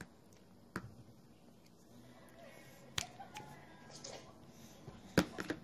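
A few sharp clicks and taps in a quiet room: one under a second in, one about three seconds in, and a quick cluster near the end. They come from a toddler handling a small hard object against a high chair tray.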